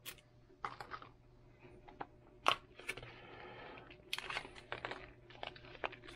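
Small hinged clear plastic box of center drill bits being opened by hand: tape picked off, the lid clicking, and a small plastic bag of bits crinkling. Scattered sharp clicks, the loudest about two and a half seconds in, with a stretch of rustling after it.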